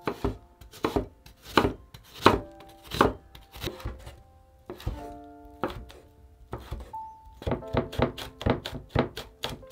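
Chef's knife cutting on a wooden cutting board: slow, evenly spaced strokes through half an onion, then a few cuts through bacon, then fast chopping at about five strokes a second as garlic is minced near the end.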